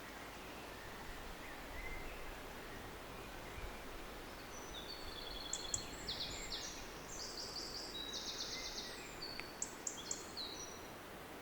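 A songbird singing a high, varied song of fast trills and short repeated notes, starting about four seconds in and stopping shortly before the end, over a steady background hiss of outdoor ambience. Fainter, lower chirps sound early on.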